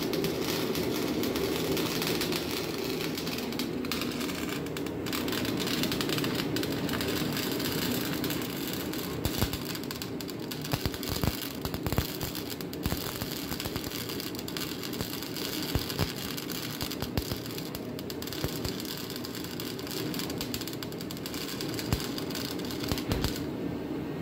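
Electric arc welding on steel exhaust pipe: a steady crackling hiss broken by frequent sharp pops, over a low hum.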